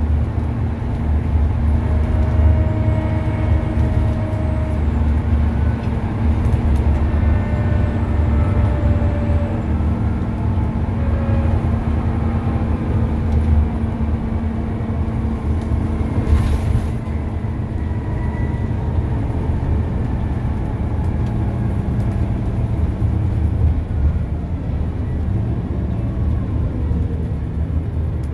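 Scania N94UD double-decker bus running at speed, heard from inside the saloon: a steady low engine rumble with a held drone and road noise. Brief whines and a single sharp rattle or knock about halfway through come from the moving bus.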